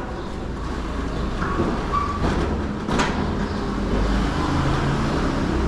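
Heavy sliding gate rolling along its metal floor track, with a low rumble and scraping, a short squeak, and a sharp metallic clank about three seconds in.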